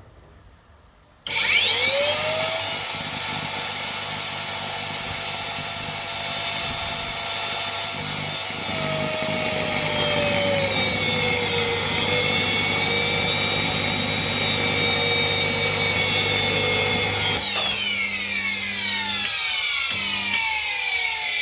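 Vacuum cleaner motor run overloaded on 400 V, far above its rating: it starts suddenly about a second in and spins up to a loud, very high whine. The pitch sags a little about halfway through, then about four seconds from the end it starts falling steadily as the motor winds down.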